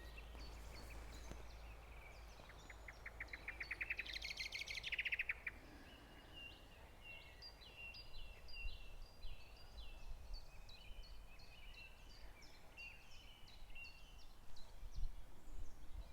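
Wild birds singing outdoors. About three seconds in there is a fast, high rattling trill of many quick notes, the loudest sound here, lasting about three seconds. It is followed by a long run of short, quick, falling chirps.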